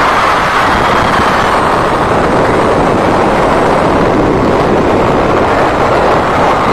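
Large concert crowd of fans screaming without a break, recorded on a phone microphone that distorts under the loudness.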